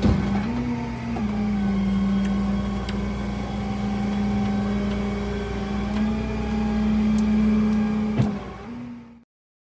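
A motor vehicle's engine running at a steady speed. Its pitch steps up and down a few times, with a few sharp clicks, the loudest just before the sound fades and cuts off near the end.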